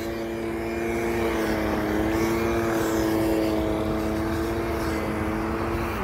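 A steady engine drone: a clear pitched hum over a low rumble, holding nearly constant pitch throughout.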